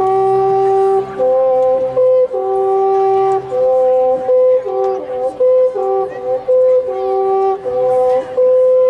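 Marching band music starts abruptly with held, steady notes that swap back and forth between a lower and a higher pitch. The swaps come about once a second at first and quicken in the second half.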